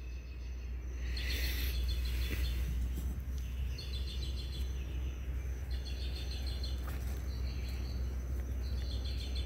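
Night insects chirping in repeated pulsed trills, over a low steady rumble, with a brief rustle about a second and a half in.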